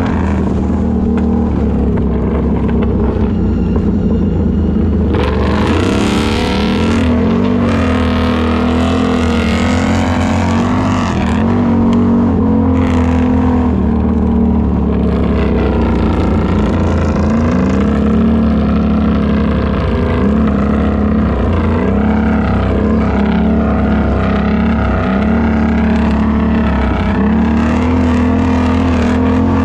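Can-Am ATV engine running while being ridden, its pitch rising and falling as the throttle is opened and eased. A short spell of rushing noise comes in a few seconds in and again near the middle.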